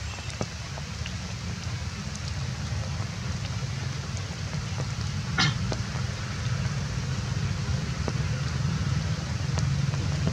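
Steady outdoor background of a low rumble under a hiss, with scattered light ticks and one brief sharp crackle about five seconds in; it grows a little louder toward the end.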